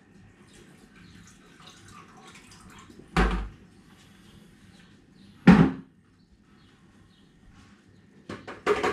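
Last of the liquid trickling and dripping from a plastic brewing bucket into a fermenter, then two loud thumps about two seconds apart as the emptied bucket is knocked and set down. A quick clatter of clicks near the end.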